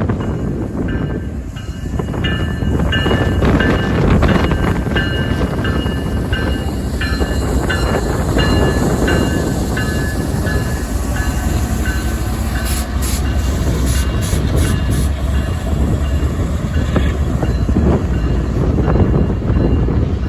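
Union Pacific freight train rolling past, a steady heavy rumble with wind buffeting the microphone. Short high-pitched ringing tones come and go through the first half, and a run of sharp clicks follows.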